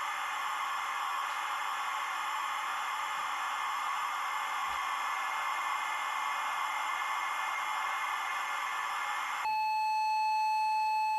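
Steady electronic hiss like static, with faint steady tones in it, for about nine seconds. Near the end it gives way to a single louder, steady beep tone, like a telephone line tone.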